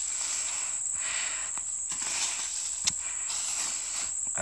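Steady high-pitched trilling of insects, with faint rustling of dry hay being searched through and a single sharp click a little before the three-second mark.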